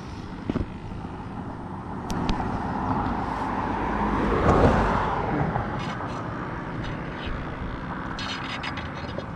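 A vehicle passing by, its noise swelling to a peak about halfway through and then fading away, over outdoor background noise with a few light clicks and taps.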